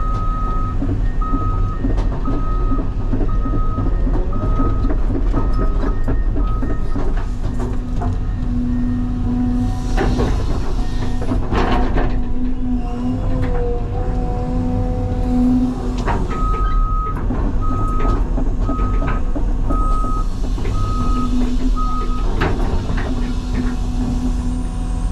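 Heavy diesel engine running steadily under load, with a backup alarm beeping about once a second in two runs of several seconds each. A couple of sharp knocks come in the middle.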